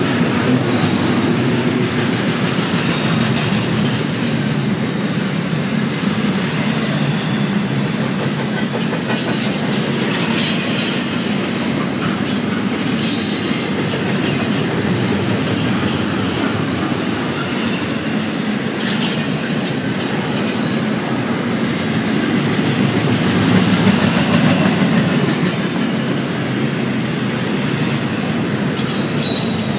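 An eastbound BNSF double-stack container train rolling past, its steady wheel-on-rail rumble broken by occasional high-pitched wheel squeals and a few sharp clacks.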